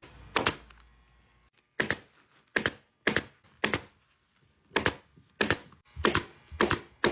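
Staple gun firing staples into a seat frame, about eleven sharp shots at an uneven pace of roughly one every half second to a second.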